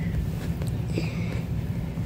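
A steady low rumble, with a few faint brief higher sounds about a second in.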